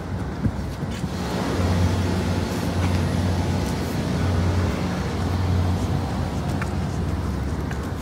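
Rooftop air-conditioning equipment running: a steady low hum with an even rush of fan air.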